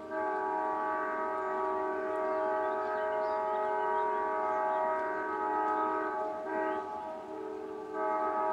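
Amtrak locomotive's multi-chime air horn blowing a long chord as a horn show for a trackside listener. It eases off briefly about six seconds in and sounds in full again near the end.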